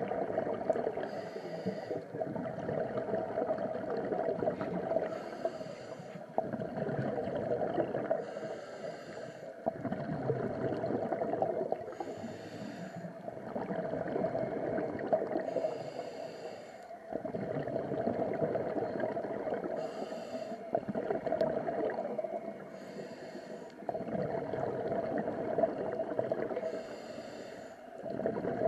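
Scuba diver breathing through a regulator, in a slow, even cycle about every four seconds: a short hissing inhale followed by a longer bubbling exhale, about eight breaths in all.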